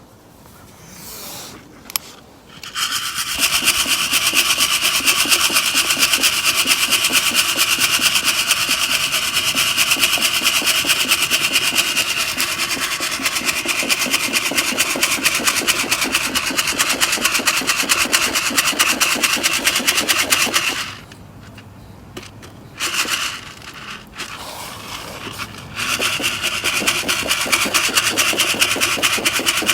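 Coffee beans being shaken back and forth in a metal Sierra cup over a fire to roast them: a fast, steady rattle of beans against the metal. It starts about three seconds in, stops for a few seconds about two-thirds of the way through, then picks up again.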